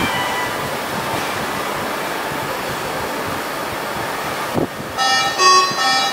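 Steady hiss from ICU equipment and ventilation. About five seconds in comes a broken run of electronic alarm tones from bedside medical machines, with a brief tone also at the start.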